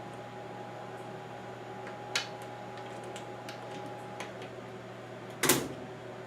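A new lid lock being snapped into place on a Whirlpool Cabrio top-load washer: a few light clicks, then one loud, short snap about five and a half seconds in. A steady low hum runs underneath.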